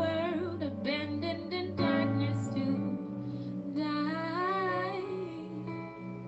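A woman singing a slow worship song in long, held notes that bend and waver, over steady sustained instrumental accompaniment.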